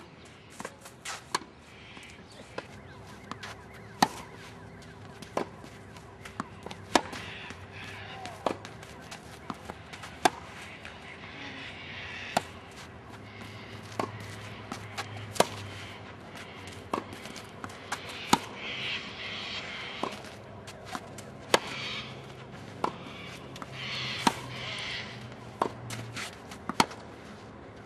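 Tennis ball struck by rackets in a steady rally: a sharp pop roughly every second and a half, with fainter ticks between the hits.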